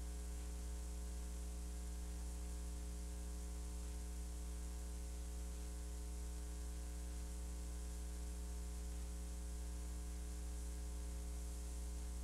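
Steady electrical mains hum with a buzzy row of overtones and a hiss over it, unchanging throughout: the noise of a blank, unrecorded stretch of videotape playing back as static.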